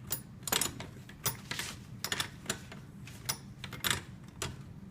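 Irregular light clicks and clinks of hand tools and small metal parts being handled, about a dozen in the span, over a steady low hum.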